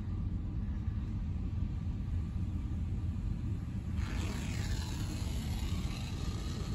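RYKO UltraSonic 2001 overhead car wash heard from inside the car: a steady low rumble, and about four seconds in a hiss of water spray on the car starts and runs for a few seconds.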